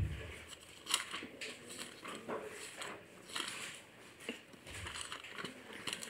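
Bible pages being leafed through: faint paper rustling with small irregular clicks, and a soft low thump at the start.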